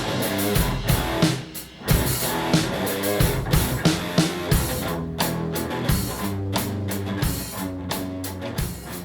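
Background rock music with drums and guitar, on a steady beat.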